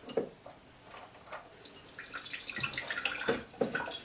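Water running out of the ice-water air cooler's drain and splashing and dripping into a pint glass. It starts a couple of seconds in, after a few light knocks.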